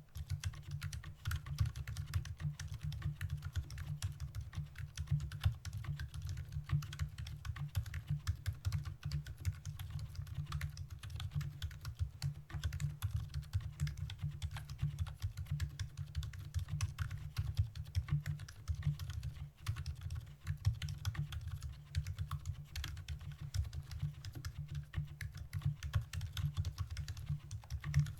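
Steady, fast typing on a Novelkeys NK65 mechanical keyboard with stock, unlubed Gazzew Boba Pink silent linear switches, an aluminium plate and PBT keycaps. The keystrokes are soft and low-pitched.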